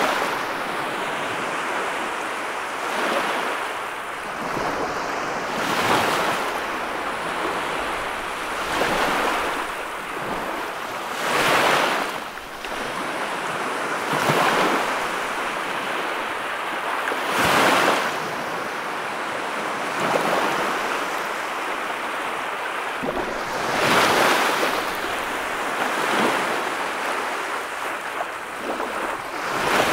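Small waves washing up onto a sandy beach, the surf swelling and fading every three seconds or so.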